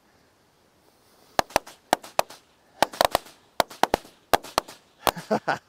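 A pack of small firecrackers going off: a rapid, irregular string of sharp pops that starts about a second and a half in, sounding muffled in strong wind.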